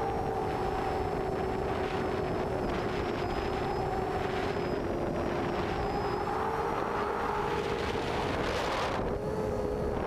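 Havoc 340 quadcopter's brushless motors (Cobra 2213 2000kv) spinning 6x4.5 propellers in flight, a steady buzzing whine that rises and falls slightly in pitch.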